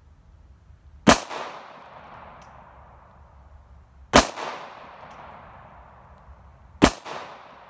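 Three 9 mm pistol shots from a Glock 19, about three seconds apart, each followed by a short echo trailing off.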